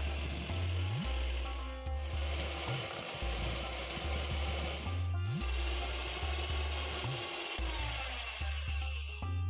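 Electric hand mixer with wire beaters running in a glass bowl of melted shea butter and oils, whipping it into a cream; the noise breaks off briefly twice, about 2 and 5 seconds in. Background music with a steady low beat plays underneath.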